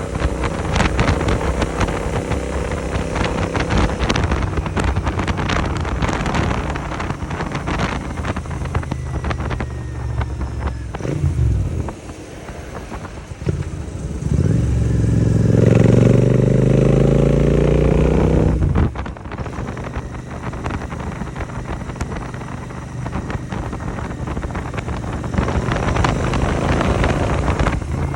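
Royal Enfield 650 parallel-twin with an AEW 101 aftermarket exhaust on the move, with wind noise. About twelve seconds in the throttle closes and the sound drops; then the engine pulls hard with a rising pitch for several seconds before settling back to a steady cruise.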